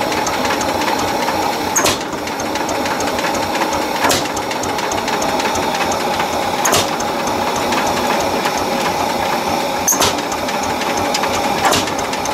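Tractor engine running steadily in a rapid, even rhythm, with a sharp click every two to three seconds.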